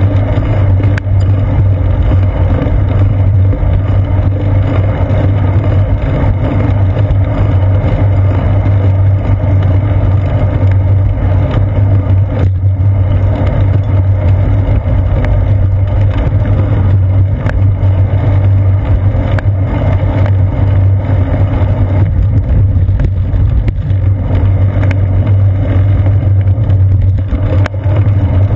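Steady, loud low rumble of wind buffeting and road vibration picked up by a seat-post-mounted GoPro Hero 2 on a moving bicycle.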